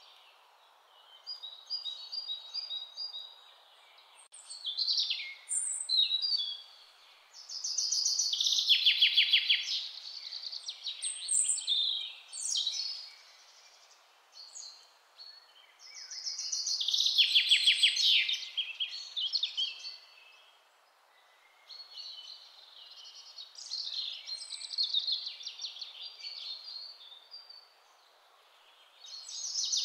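Recorded songbirds singing: repeated high chirps and rapid trilled phrases with short quiet gaps between them, the loudest trills a third of the way in, past the middle, and at the very end, over a faint steady outdoor hiss.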